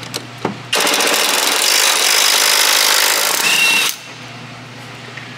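Impact gun hammering a bolt loose through a socket and extension in one burst of about three seconds, starting about a second in and ending with a short whine. A low steady hum runs under it before and after.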